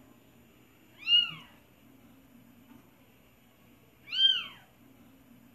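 A cat meowing twice, about three seconds apart: two short, high-pitched meows that rise and then fall in pitch.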